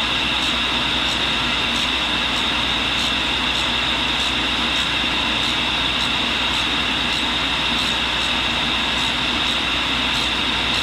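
1942 Cincinnati tool and cutter grinder running steadily with its dust vacuum drawing beside the wheel while a carbide drill bit is ground: an even hum and hiss with a high whine, and faint regular ticks about twice a second.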